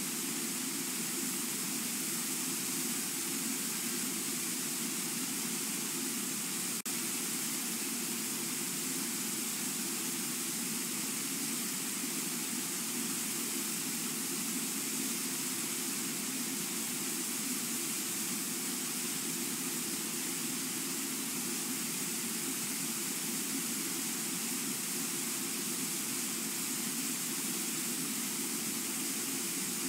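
Brooks Falls' water rushing steadily over the falls, an unbroken wash of noise. A single faint click comes about seven seconds in.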